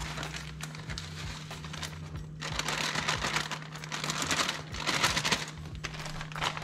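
Plastic shredded-cheese bag crinkling and rustling as it is handled and shaken over a baking pan. It is loudest in the middle stretch.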